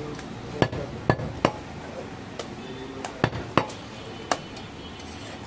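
Heavy butcher's cleaver chopping goat meat on a wooden log block: sharp chops, three close together in the first second and a half, then three more a couple of seconds later.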